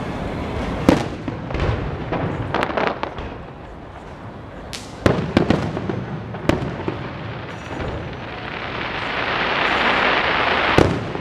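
Aerial fireworks shells bursting with sharp bangs: a cluster in the first three seconds, more around five to six and a half seconds in, and a last one near the end. A swelling hiss builds for the final few seconds.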